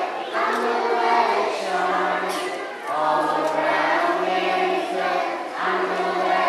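A group of young children singing a slow song together in unison, holding each note for about a second.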